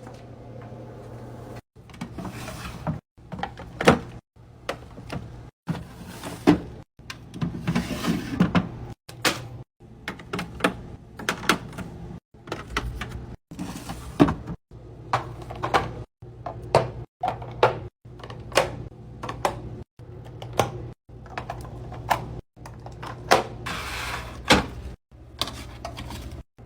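Fridge restocking sounds in a string of short clips cut abruptly about every second: sharp clicks, clacks and knocks of containers and items being set in and drawers and doors moving, over a steady low hum.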